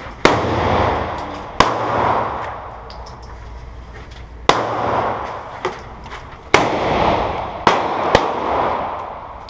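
Gunshots fired one at a time, about seven at uneven gaps of half a second to three seconds, each followed by a long echo rolling away.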